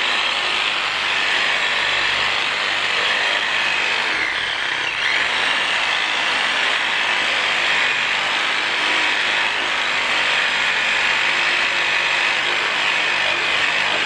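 Corded electric reciprocating handsaw running and sawing through a thick tree limb: a steady buzzing cut through the wood that eases slightly about four to five seconds in.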